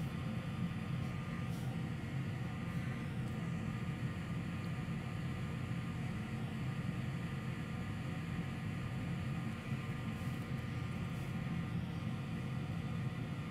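Steady low hum of a running fan or blower motor, with a faint steady whine above it.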